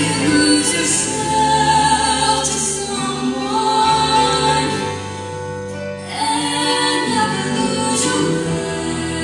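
Mixed show choir singing sustained, harmonised notes over instrumental accompaniment with a bass line. The sound eases briefly about five seconds in, then swells again.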